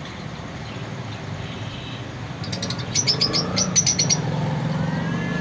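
Small caged finches chirping: a quick run of short, high chirps about three seconds in, over a steady low hum.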